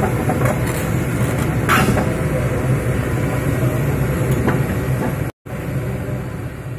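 Large Kobelco crawler excavator's diesel engine running steadily with a deep, low drone as the machine moves on its tracks off a transport trailer. A few faint knocks come through it. The sound cuts out completely for a split second a little past five seconds in, then carries on.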